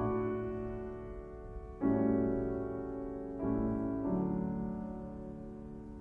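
Slow, gentle piano music: four chords struck a second or two apart, each left to ring and slowly fade, growing quieter toward the end.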